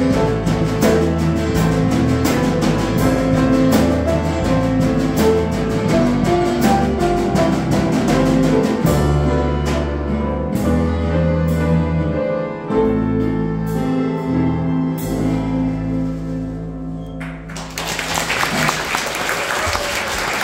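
Live band of drums, piano, accordion, strings and bass playing the end of a song. The drumming thins out about halfway and the final notes are held. Near the end the music stops and the audience applauds.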